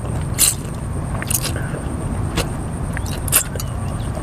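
People eating rice vermicelli noodles: several short slurps of noodle strands, with chewing and a light utensil click, over a steady low rumble.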